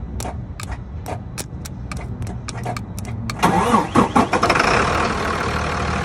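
A run of irregular sharp clicks. About three seconds in, a loud engine noise starts with a wavering pitch, then carries on steadily.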